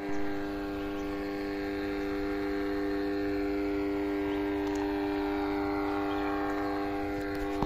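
A steady, unchanging hum made of several held tones, strongest in the low-middle range.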